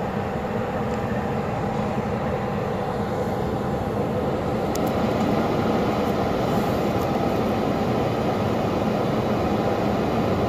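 Military helicopter running on the ground, its turbine engines and rotor giving a steady, unbroken noise.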